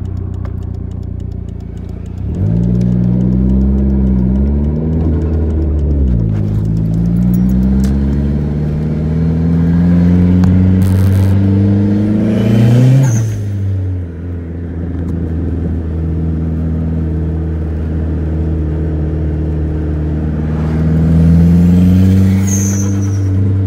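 Dodge Neon SRT-4's turbocharged four-cylinder engine heard from inside the cabin as the car is driven. The revs climb as it pulls away and shifts, with drops about six and thirteen seconds in, then it cruises steadily before climbing again near the end.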